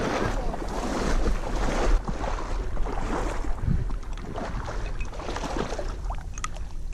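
Hunter in waders wading quickly through shallow marsh water, the water swishing and splashing around his legs with each stride, with a few small splashes near the end as he reaches down to grab a downed gadwall.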